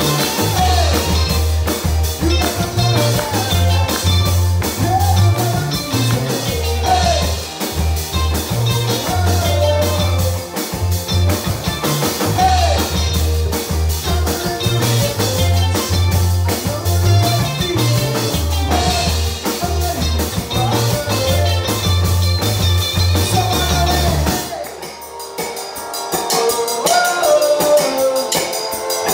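Live rock band playing: two electric guitars, bass guitar and drum kit, with a sung vocal line. About 24 seconds in the bass drops out and the music thins to a quieter breakdown, building back up near the end.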